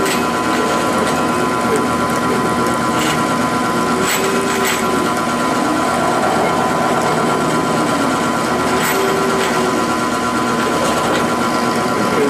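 Grizzly G0705 mill-drill, converted to CNC, running a pocketing cut in an aluminium block: a steady spindle whine, with the axis motors' pitch rising and falling in slow sweeps as the table moves, and a few light ticks.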